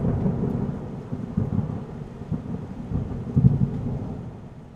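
Thunder rumbling and slowly dying away, with a second, louder roll about three and a half seconds in.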